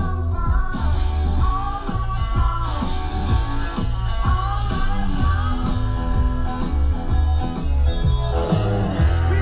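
Rock music with guitar, a heavy bass line and a steady drum beat.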